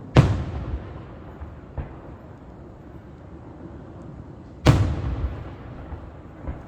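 Two loud booms of aerial fireworks shells bursting, about four and a half seconds apart, each trailing off over about a second. Fainter thuds of other shells come in between and near the end.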